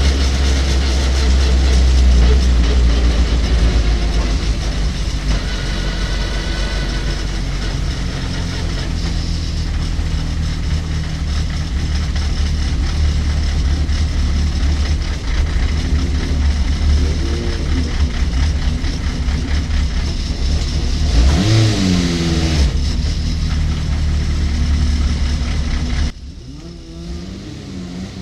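Race pickup truck's engine running hard on track, heard from inside the stripped, roll-caged cabin, its pitch rising and falling with throttle and gear changes. About 21 s in the pitch falls sharply as it slows, and near the end the engine sound drops abruptly to a quieter level.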